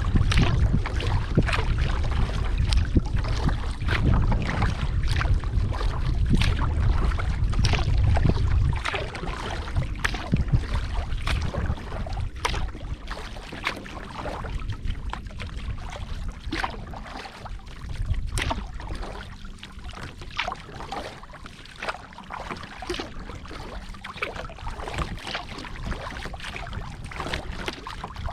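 Kayak paddling on a lake: irregular splashes and drips of water from the paddle. Wind rumbles on the microphone for about the first eight seconds, then drops away.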